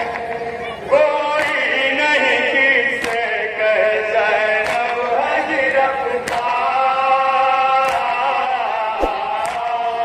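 A group of men chanting a nauha, a Shia lament, in unison over a microphone. Sharp slaps of chest-beating (matam) land about every one and a half seconds.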